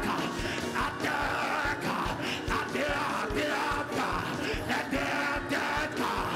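Church band music with a steady, quick drum beat, under many voices of a congregation praying aloud together, some shouting.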